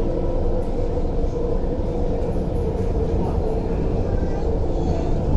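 Running noise heard inside a moving MTR Tuen Ma Line C-train passenger car: a steady rumble of wheels on rails with a steady hum over it.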